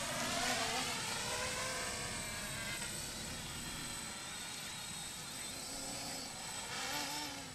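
Quadcopter drone's propellers buzzing, the pitch rising and falling as the motors change speed.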